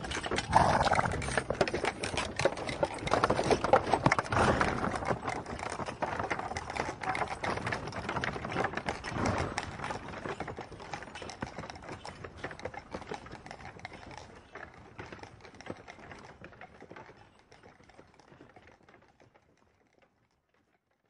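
Horse sounds: a dense run of clicking and knocking with a few louder swells, fading out over the last several seconds.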